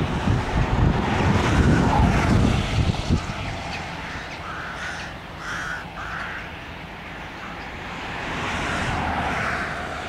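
Rook cawing: three short, harsh caws in quick succession about halfway through. Wind buffets the microphone over the first few seconds.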